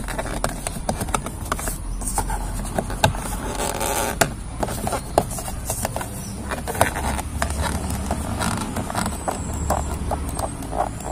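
Irregular plastic clicks, taps and scraping as a trim piece is worked loose from a car's interior door panel, over a low steady hum.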